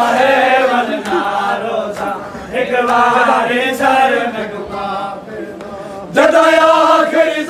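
A group of men chanting a noha, a Shia mourning lament, together in one voice. The chanting dips in level just past the middle, then comes back loud and full about six seconds in.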